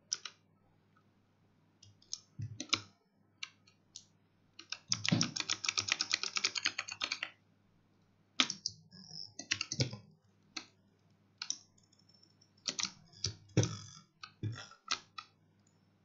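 Razer Huntsman Mini 60% optical keyboard clacking under gaming keypresses. Scattered single strokes give way about five seconds in to a rapid run of many strokes lasting about two seconds, followed by short clusters of clicks.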